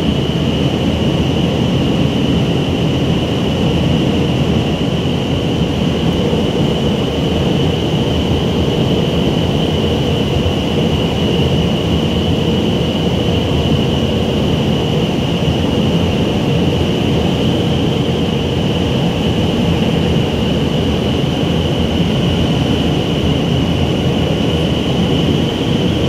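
Vertical wind tunnel for indoor skydiving running at flying speed: a loud, steady rush of air with a constant high whine over it.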